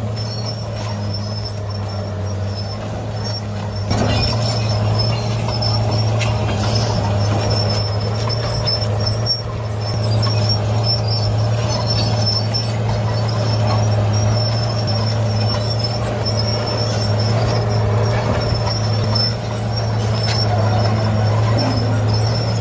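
Heavy machine's diesel engine running steadily under load, a constant low drone with a thin high-pitched squeal above it.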